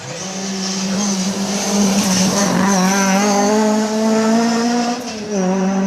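Classic rally car engine running at high revs as the car passes close, its pitch climbing slowly and then dropping briefly about five seconds in before picking up again. A high thin squeal sits above the engine.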